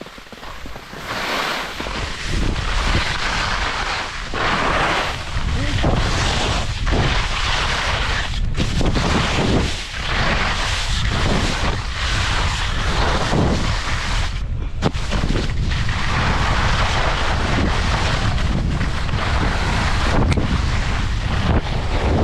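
Wind rushing over the microphone, building over the first two seconds into a loud, steady rush.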